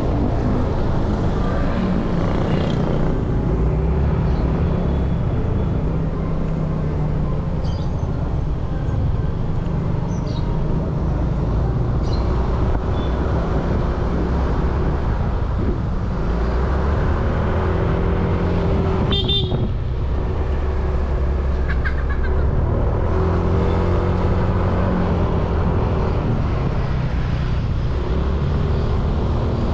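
Motorcycle running under way through town traffic, with steady engine and road noise and a vehicle horn tooting.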